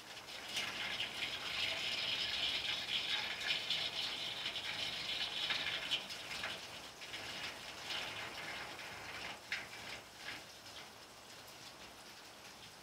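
Rain falling on a flat roof: its hiss swells to a heavy downpour over the first second, holds for several seconds, then eases, with scattered sharper drop ticks in the second half.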